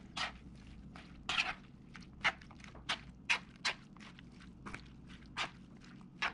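A spoon stirring diced bell peppers, onion and chunks of fish in a plastic mixing bowl: a run of short scraping strokes, irregular, about two a second.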